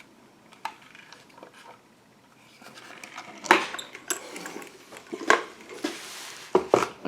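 Small hard objects clicking and knocking as they are handled, a few separate clicks with a brief rustle near the end.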